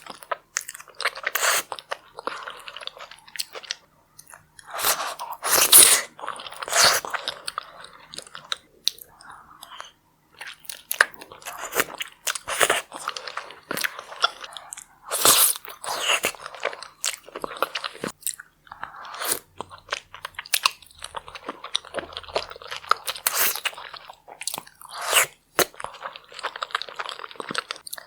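A person eating close to a microphone, mukbang ASMR style: crunchy bites and chewing in irregular bursts, with brief pauses.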